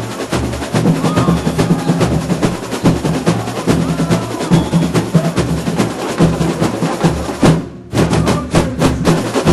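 Samba school bateria playing a live batucada without singing: surdos beat a steady low pulse under dense snare and tamborim strokes. The sharper drums drop out for a moment about three quarters of the way in, then strike again.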